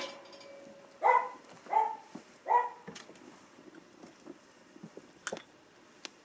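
Small dog barking three times in quick succession, short pitched barks with a slight downward bend, followed a few seconds later by a couple of sharp clicks.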